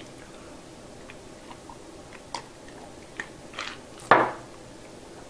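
A drinking glass set down on a table with one sharp knock about four seconds in, after a few faint clicks and small mouth sounds of sipping and swallowing.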